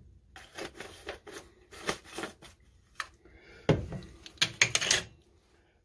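Light clicks and taps of a spice shaker jar and plastic measuring spoons being handled while granulated garlic is measured out, with a louder knock a little past halfway and a short run of clicks after it.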